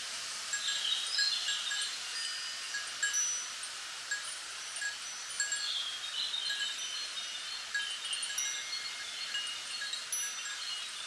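Small bells chiming in the wind, scattered short high tinkling notes at several pitches, over a steady rustle of wind through bamboo leaves.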